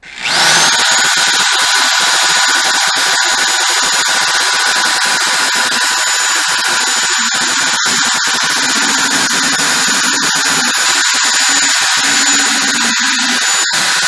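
Handheld electric drill fitted with a grinding bit, spinning up with a rising whine, running steadily and winding down near the end, grinding out a hole in a steel plate to widen it.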